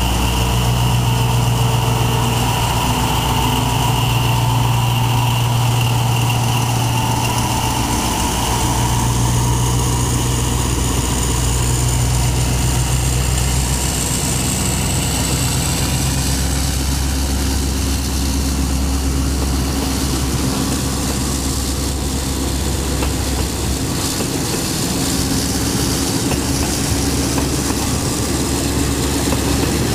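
Diesel locomotive's engine running with a deep, steady drone as it hauls a passenger train past. About halfway through the engine sound weakens and the coaches rolling by take over.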